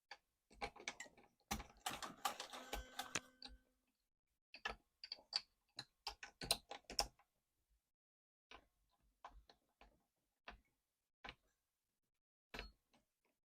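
Hand-crank string winder rattling and clicking on an electric guitar's tuning pegs as the old strings are wound off. The clicks are irregular, busiest in the first three seconds or so, then scattered.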